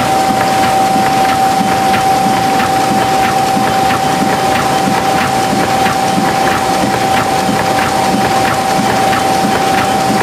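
Tymi Ustar-102 UV spot coating machine running, a steady loud mechanical noise with a constant whine and a regular, rapid clicking as sheets are fed through.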